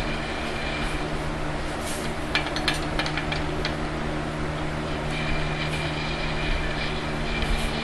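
A steady mechanical hum and drone of workshop background machinery. A few light clicks come about two to three and a half seconds in.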